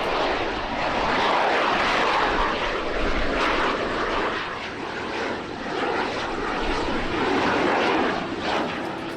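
Airplane engine running: a dense rushing noise that swells, eases in the middle and swells again.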